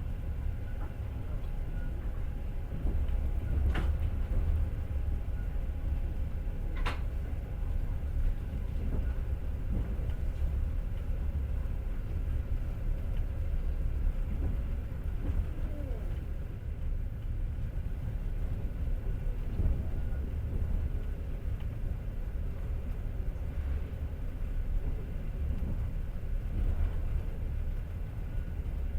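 Passenger train running, heard from inside the carriage: a steady low rumble of wheels on the rails, with two sharp clicks about four and seven seconds in.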